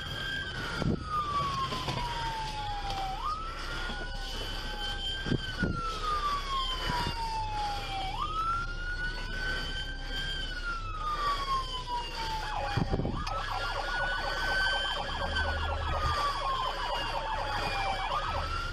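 Police car siren in wail mode: each cycle rises quickly and then slides slowly down, repeating about every five seconds, over the low rumble of the moving cruiser. A faster pulsing tone overlaps for a few seconds past the middle.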